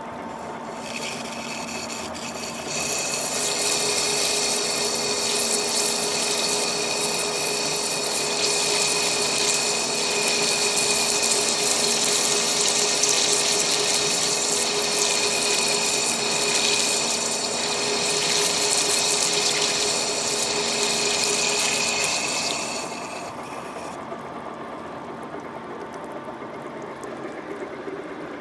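Lathe cutting a steel rotor shaft, with coolant pouring over the cut. A loud, high-pitched cutting noise with a steady whine starts about three seconds in and stops about five seconds before the end. Then only the running lathe and the splashing coolant remain.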